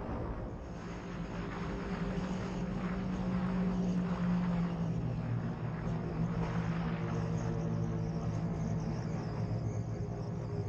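Polaris RZR 900 side-by-side cruising at speed on pavement: its twin-cylinder engine gives a steady drone, mixed with wind rush. It gets louder over the first few seconds and then holds steady.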